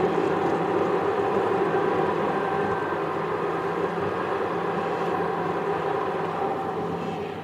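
Steady engine and tyre noise of a car driving along a road, heard from inside the cabin through a dashcam, with a low drone. The noise eases off near the end as the car slows.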